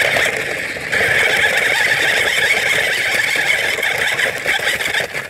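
Battery-powered ride-on toy car driving: its electric motor and gearbox whirring with a rough grinding from the wheels on the ground, steady and louder from about a second in.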